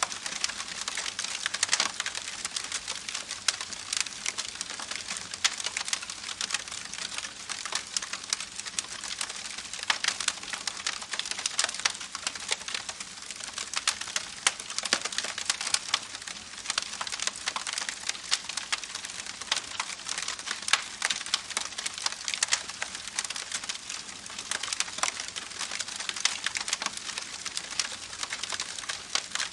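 Rain or falling water pattering steadily on a hard surface: a dense, even crackle of many small drops.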